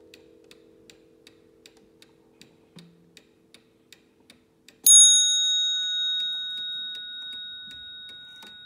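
Waterbury mantel clock movement ticking about two and a half times a second while the low ringing of its coil gong dies away. About five seconds in, the hammer strikes the brass cup bell once: a loud, high ring that slowly fades while the ticking goes on.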